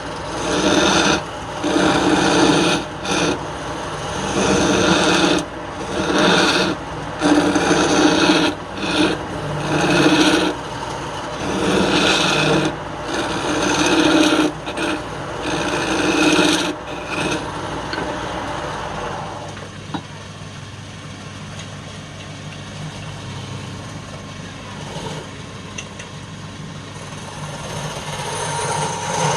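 Wood lathe motor running steadily while a tool or abrasive is pressed against the spinning wood in repeated rasping strokes, about one a second. The strokes stop about two-thirds of the way through, and the lathe runs on alone.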